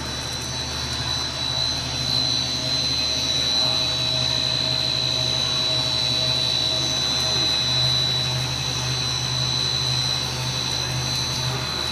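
Turbo Extruder DRX100H puffed-corn snack extruder running steadily: a constant high whine over a low motor hum.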